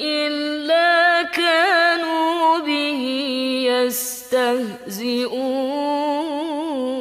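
A woman's voice reciting the Quran in murottal style, holding long melodic notes with wavering ornaments. She takes a short breath about four seconds in.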